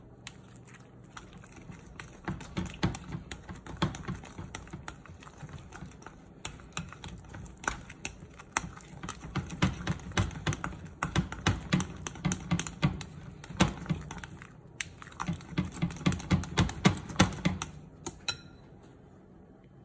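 Silicone spatula stirring thick sweet potato banana batter in a glass mixing bowl: rapid, irregular clicks and taps as the spatula knocks against the glass. A short ringing tone sounds near the end as the stirring stops.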